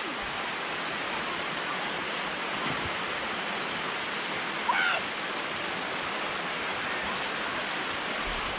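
Waterfall pouring steadily, a constant even rush of water. About five seconds in, a short high-pitched voice call rises briefly above it.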